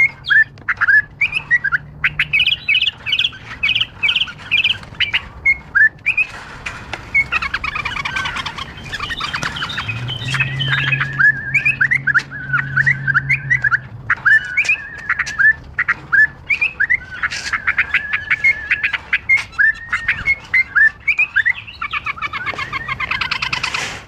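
Bulbuls calling, a near-continuous chatter of quick, short chirps repeated many times a second.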